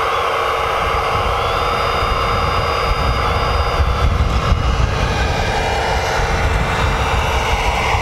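Whine and drone of electric drive motors and hydraulic pumps on 1/14-scale RC construction machines running, over a steady low rumble. Several high whining tones shift up and down in pitch as the motors change speed.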